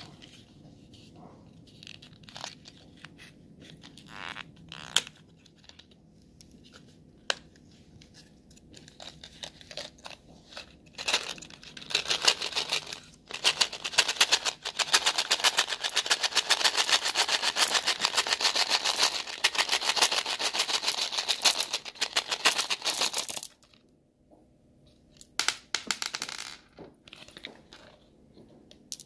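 Sugar-shelled Smarties chocolate candies rattling and clicking as they are handled in and poured from their cardboard tubes, with scattered taps and cardboard clicks at first. About a third of the way in the rattling turns into a dense, continuous clatter lasting about twelve seconds, then drops back to a few clicks near the end.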